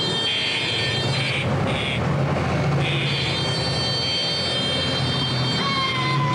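Street traffic: a steady din of motor scooters and other vehicles running close by, with a short horn sounding near the end.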